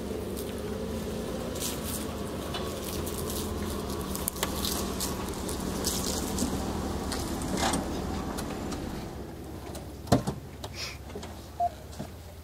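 A motor runs steadily, with scattered clicks and knocks from hands-on work on the Jeep; the hum dies away about nine seconds in, and a few sharp knocks follow near the end.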